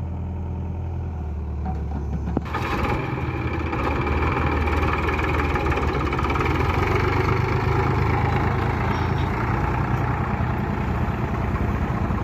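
Diesel engine running low and steady, then, after a sharp click about two and a half seconds in, it comes up to a louder, rougher run that holds.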